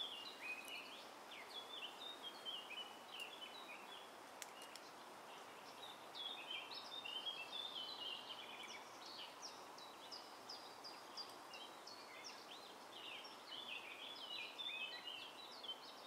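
Faint forest ambience: many small birds chirping in short, overlapping calls over a steady background hiss.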